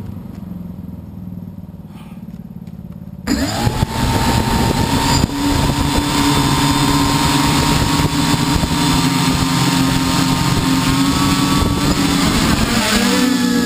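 Multi-copter's electric motors and propellers, a low hum at first, spinning up abruptly about three seconds in and then running with a steady whine over a propeller buzz. Near the end the pitch rises as the motors are throttled up.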